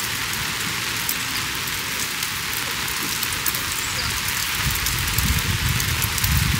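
A steady, even hiss with scattered faint ticks, and a low rumble joining about two-thirds of the way in.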